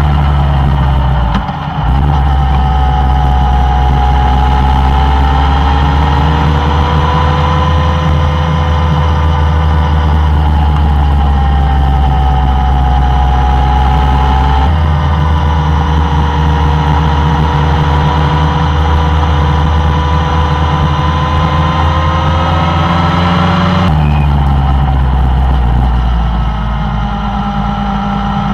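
Suzuki Bandit 1200's inline-four engine running at a steady cruise, its pitch slowly rising and falling, over a heavy low rumble. The sound shifts abruptly twice, about halfway through and near the end.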